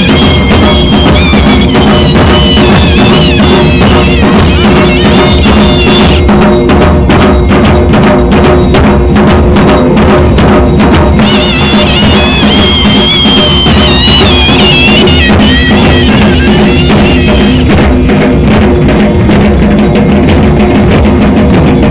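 Traditional Himachali temple band music: drums beating a fast, dense rhythm under low held notes. A high, wavering pipe melody rides on top, drops out about six seconds in and returns about five seconds later.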